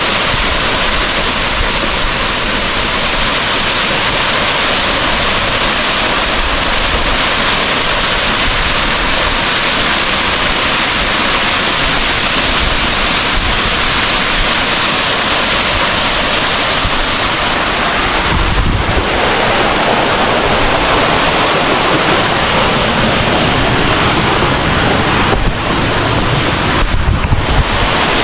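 Loud, steady rush of water from a waterfall, with low gusts of wind buffeting the microphone about two-thirds of the way through and again near the end.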